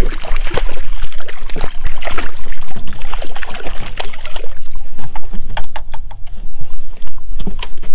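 Water splashing and sloshing against the hull of a drifting boat, with a steady low rumble of wind on the microphone and many irregular small knocks and clicks.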